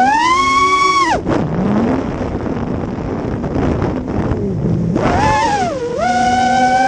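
GEPRC iX5 FPV quadcopter's brushless motors whining. A high whine rises, then drops sharply about a second in to a low wavering hum under wind rush as the quad dives. It climbs back to a high whine about five seconds in.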